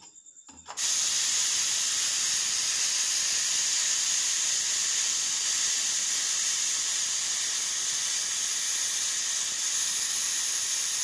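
Steam hissing steadily out of a pressure cooker's vent, its whistle weight propped up with a spatula to release the pressure by hand after cooking. The hiss cuts in about a second in, after a brief pause.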